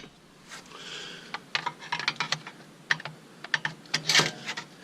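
A plastic piece is worked off a car's rear coil spring: irregular sharp clicks and taps of plastic and metal, with a brief scrape about a second in and a louder one near the end.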